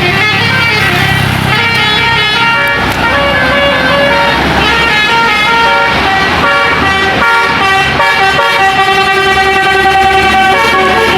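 Indonesian 'telolet' multi-tone bus horn playing a quick tune of changing notes, several notes sounding together, over the low running of the bus engine.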